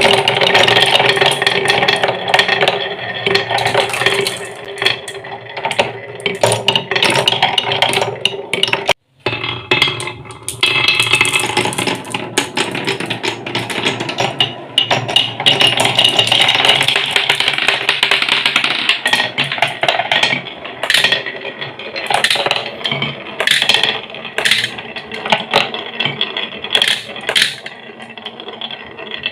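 Many marbles rolling and clattering down wooden marble-run tracks and slopes, a steady dense rattle of clicks and knocks with some ringing tones. The sound breaks off for an instant about nine seconds in, then resumes.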